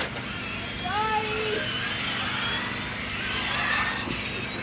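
Brushed electric RC touring cars racing, their motors whining and rising and falling in pitch as they accelerate and slow, over a steady low hum.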